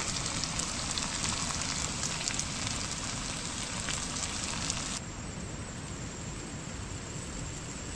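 Vegetable curry sizzling and crackling in a pan on a camping stove: a dense hiss with fine crackles. About five seconds in, the sound cuts abruptly to a steadier, duller hiss.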